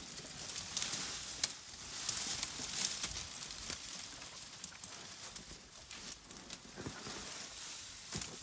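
Dry vegetation rustling and crackling with many irregular sharp snaps, as elephants move and feed in the bush.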